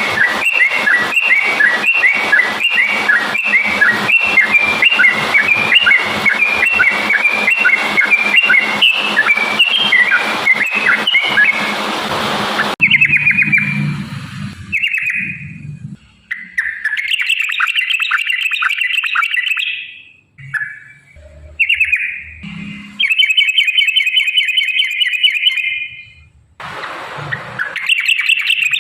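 Yellow-vented bulbul (trucukan) singing in long, fast strings of quick repeated notes. For about the first thirteen seconds the song runs without a break over a steady hiss. After that it comes in separate chattering bursts with short pauses between them.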